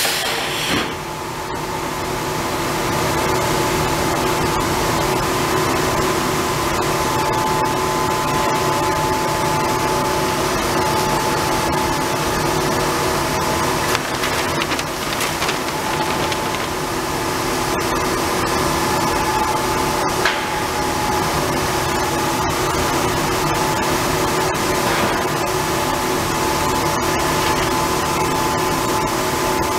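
Steady hum and whir of paper-roll conveying machinery running, with a few faint knocks.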